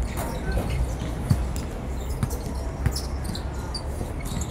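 Football being kicked on an artificial-turf pitch: about three dull thuds within a couple of seconds, over a steady low rumble.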